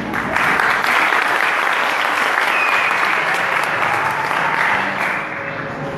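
Audience applauding; the clapping swells just after the start and dies down near the end.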